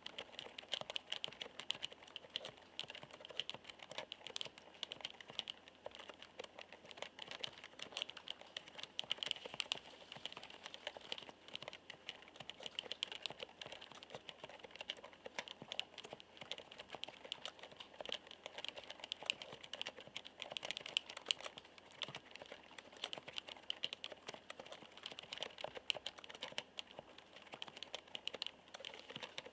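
Steady, fast typing on a μTRON keyboard with Topre electrostatic capacitive (contactless) key switches: a dense, irregular run of keystrokes with the soft knocking 'kotokoto' character of these switches.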